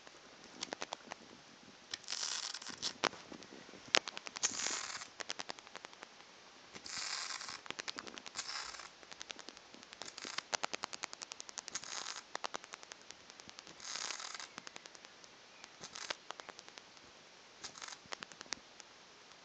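A bat grounded on a bed sheet, flapping its wings against the fabric. Short bursts of rustling come several times, between trains of rapid sharp clicks.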